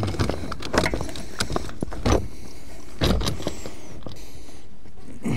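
Irregular knocks and clicks of an awning's mounting brackets being handled and fitted onto a minivan's roof-rack crossbar, coming thick in the first couple of seconds, then a pair of knocks about three seconds in and a last one near the end.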